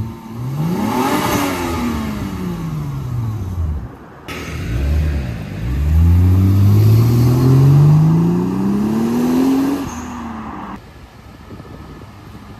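Black Lexus GS saloon's engine revving as the car pulls away: the revs rise and fall once, then after a short lull climb steadily in one long pull as it accelerates off, cutting off sharply about ten seconds in.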